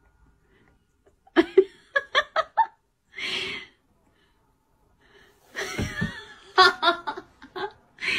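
A person laughing: a quick run of short bursts about a second and a half in, a breathy sound, then a longer bout of laughter near the end.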